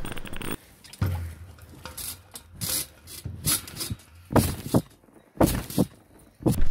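Someone bouncing on a garden trampoline: a series of thuds as the feet land on the mat, about one a second. Before them, a zipper on the trampoline's safety net running, cutting off about half a second in.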